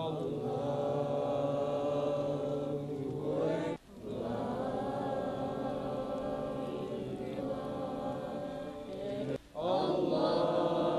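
Arabic Islamic prayer chanted in long, held melodic phrases, in three lines with short breaks for breath about four and nine and a half seconds in.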